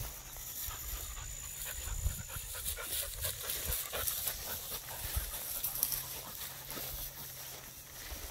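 A dog panting close by, a quick run of short breaths, with dry grass rustling as it moves through the field.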